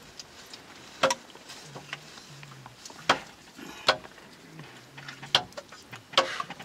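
A metal spoon clinking against a metal bowl and the pot's rim as liquid is ladled into a pot over a wood fire: about five sharp clinks at uneven intervals, roughly a second apart.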